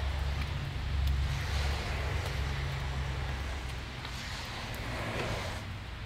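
Steady rain falling on a neighbourhood street, with scattered light ticks and a low rumble that weakens about halfway through.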